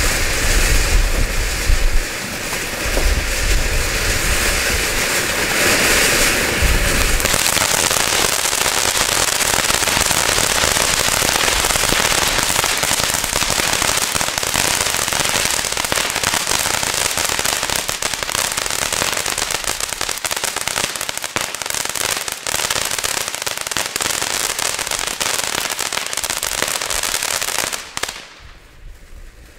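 Diamond Cool & Hot ground fountain firework burning, a steady hiss of spark spray. About seven seconds in it turns to a dense crackling, and shortly before the end it falls much quieter.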